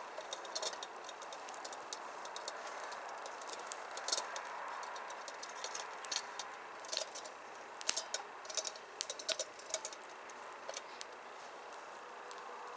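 Camp dishes being washed by hand in a bowl of hot water: scattered light clinks and rattles of cookware and utensils, coming thicker for a few seconds in the second half, over a steady faint hiss.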